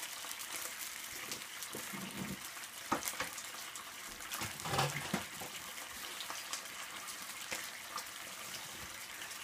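Tomato sauce with garlic and olive oil simmering in a frying pan: a steady sizzle broken by scattered pops where oil spits out of the pan.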